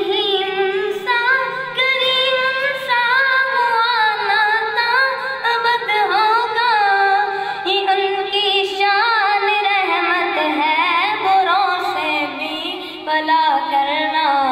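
A naat sung unaccompanied: one voice draws out a long, wavering, ornamented phrase with no clear words after the opening 'Raheem'.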